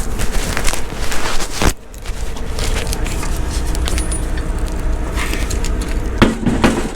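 Semi truck's diesel engine idling steadily under metal rattles and a few sharp clanks as a converter dolly is worked into place to hook up a trailer.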